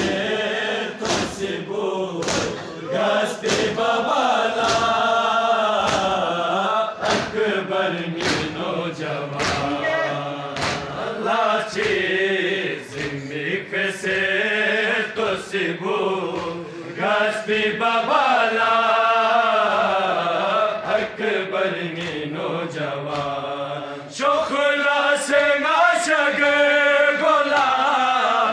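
Men chanting a Balti noha, a Muharram lament, in unison, with evenly spaced hand slaps of matam (chest-beating) keeping the beat.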